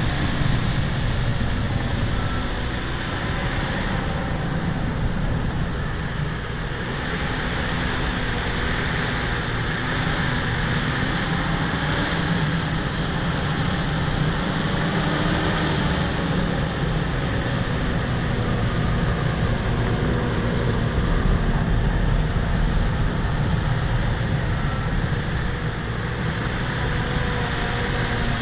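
Bulldozer's diesel engine running steadily under load while it strips topsoil, its pitch wavering slightly.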